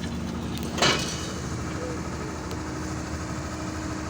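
Excavator's diesel engine running steadily at idle. A short, loud noisy burst about a second in could be a metal clank from the track chain or a hydraulic hiss.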